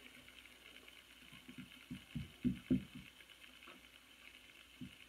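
Fingers tapping softly on a wooden floor: a run of dull, low thumps in the middle, louder toward its end, and more starting again near the end, over a faint steady hiss.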